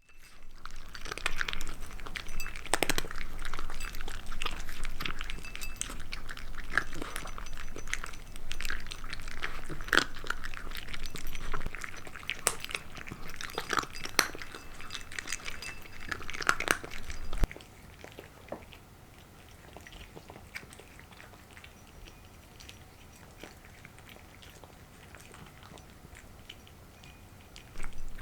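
Cats chewing and crunching food, with many sharp crunches for about the first two-thirds, then going much quieter.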